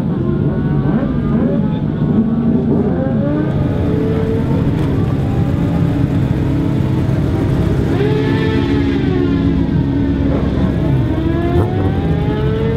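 Several racing motorcycle engines, a Honda among them, running and revving, their pitch repeatedly rising and falling.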